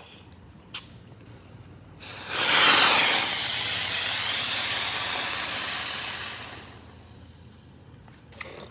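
Small ground firework spraying sparks with a loud hiss that starts suddenly about two seconds in, is strongest at first and slowly dies away over about five seconds. It fizzles in place, and the family calls it a dud.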